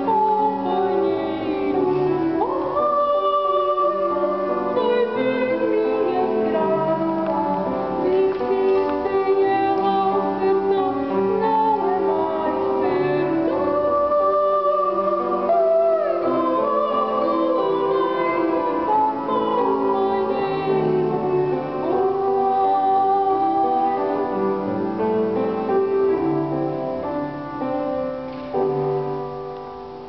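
A woman singing a song in a classical, operatic style, accompanied by an upright piano. Near the end the level falls away as the song closes.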